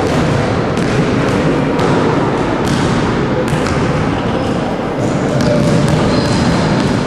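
Basketballs bouncing on a wooden gym floor and thudding off the backboard and rim, a sharp thud every second or so at an uneven pace.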